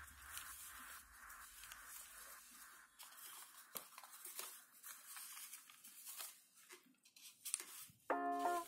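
Thin paper faintly rustling and crackling as an origami tessellation is creased and collapsed by hand. About eight seconds in, plucked-guitar background music comes in.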